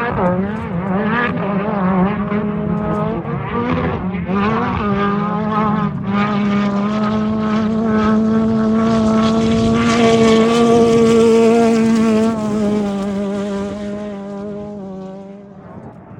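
An off-road race vehicle's engine at high revs going by. Its pitch wavers up and down for the first few seconds, then holds high and steady as it grows louder to a peak about two-thirds of the way through, before fading away near the end.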